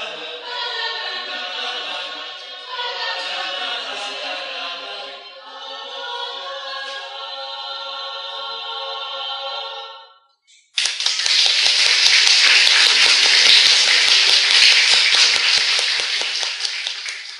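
Mixed choir singing a cappella, closing on a long held final chord that cuts off about ten seconds in. After a brief silence the audience breaks into applause, louder than the singing, which carries on to the end.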